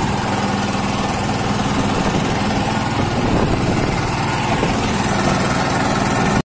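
Small petrol engine running steadily at low speed aboard an open wooden fishing canoe.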